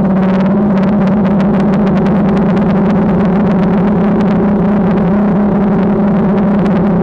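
DJI Phantom quadcopter's motors and propellers running with a steady, unchanging hum, picked up close by its onboard GoPro, with wind buffeting the microphone.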